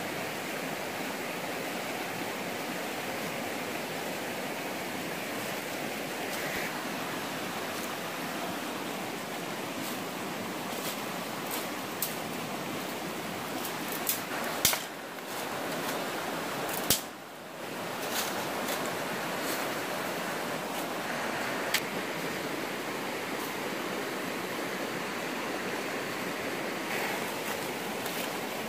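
Steady rushing of a stream, with a few sharp snaps and crackles of dry sticks and dead leaves being handled.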